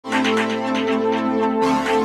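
Electronic background music with sustained chords over a light, even beat; the chord shifts about one and a half seconds in.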